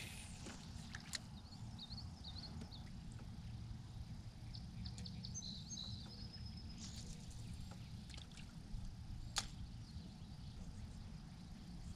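Faint outdoor ambience: a steady low rumble, a few faint bird chirps, and one sharp click about nine seconds in.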